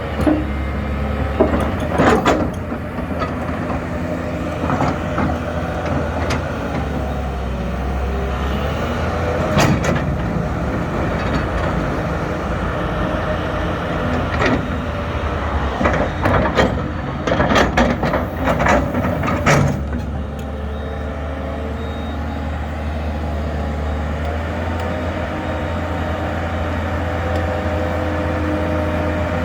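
Hyundai excavator's diesel engine running steadily, with sharp metallic knocks and clanks about two seconds in, around ten seconds in, and in a cluster a little past the middle.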